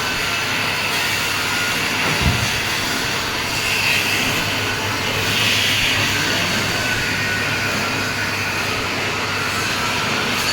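Heavy-duty lathe running with a steady mechanical noise, with a single low thump about two seconds in.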